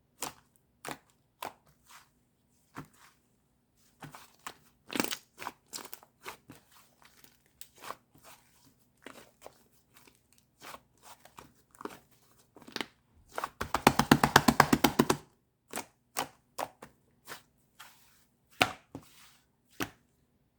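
White clay slime being pressed and squished by hand, making sticky clicks and pops at irregular intervals. About two-thirds of the way through comes a fast run of pops, a dozen or so a second for about a second and a half, the loudest part.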